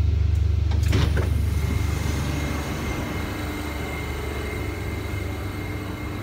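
Steady low rumble of a moving vehicle heard from inside, with a faint high whine and one short click about a second in.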